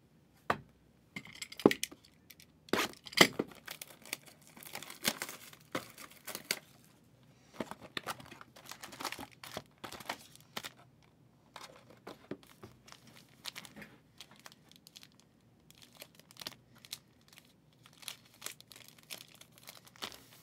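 Shrink-wrap being torn and crinkled off a sealed hobby box of 2023 Panini Spectra football cards: irregular plastic rustling and crackling, loudest in the first few seconds.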